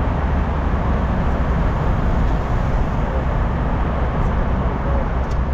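Inside a moving car: a steady low rumble of engine and tyres with road hiss.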